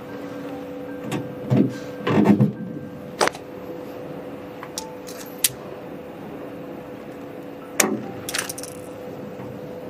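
Scattered small clicks, taps and handling noises as plastic pneumatic air tubing is pushed into fittings and moved about inside a metal cabinet, with a cluster in the first couple of seconds and a sharp click near the end. A steady hum runs underneath.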